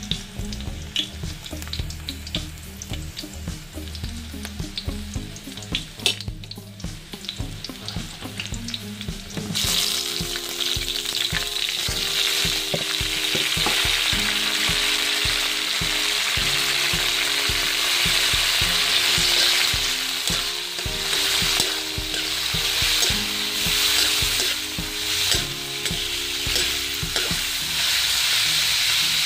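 Onions and garlic frying in oil in an aluminium wok, with light clicks of stirring. About ten seconds in comes a much louder, steady sizzle as raw chicken gizzards go into the hot oil. They keep frying while a spatula stirs and scrapes them around the wok.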